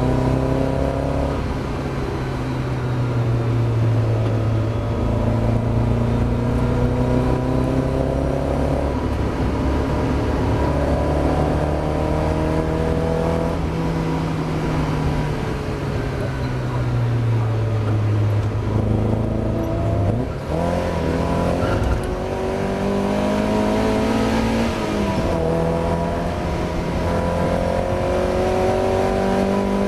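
Mazda MX-5 race car engine pulling hard, its pitch climbing and then dropping back at each gear change every few seconds. About two-thirds of the way through, a short dip is followed by a sharp knock.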